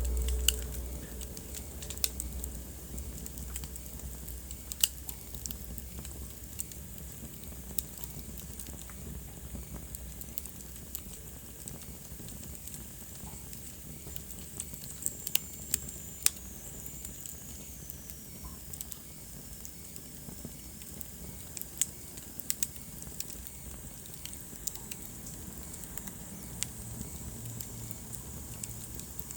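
Wood fire crackling in a fireplace: irregular sharp pops and snaps over a soft steady hiss. About halfway through a thin high whistle slides down in pitch for a few seconds.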